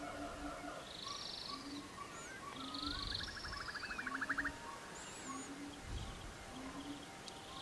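A background bed of several birds chirping, calling and trilling, with one fast trill a few seconds in, over a soft low tone that repeats about once a second.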